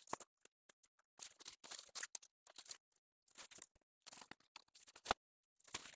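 Faint, broken rustling and scraping of play-tent fabric and tent poles as the pole tips are worked into the pockets around the tent's edge, with one sharp click about five seconds in.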